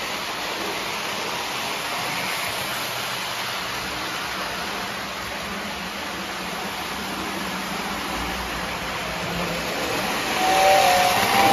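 Lionel O-scale model trains running on the layout's track: a steady rolling rumble of wheels and motors that swells near the end as a train approaches. The approaching train's whistle sounds about ten seconds in.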